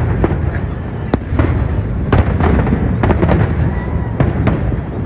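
Fireworks display: irregular bangs, about two a second, over a continuous low rumble of further bursts.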